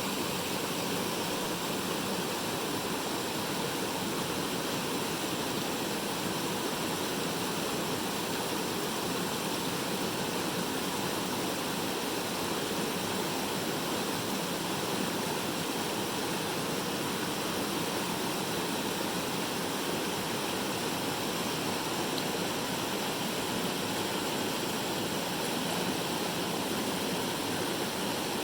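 Rushing water of a mountain stream, a steady even rush with no breaks.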